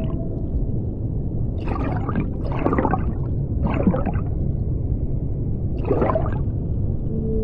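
Ambient performance soundscape: a deep, steady rumble with four short bursts of crackling noise, the first three about a second apart and the last near the sixth second.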